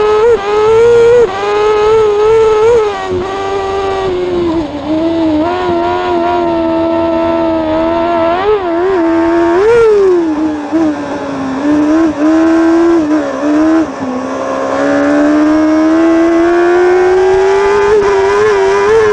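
Crosskart engine at racing revs, heard right at its exhaust silencer. The pitch jumps up and down sharply several times in the first few seconds and again around the middle, then climbs steadily through the last five seconds as it accelerates.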